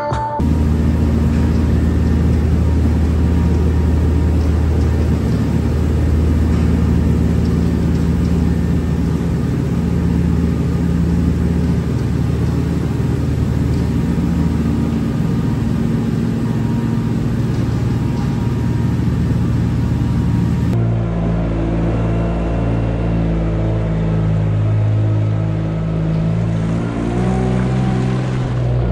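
Tractor engine running steadily while powering a trailed straw-bedding blower. A little after 20 seconds the sound changes abruptly to a different tractor engine running with a front-mounted hopper spreader.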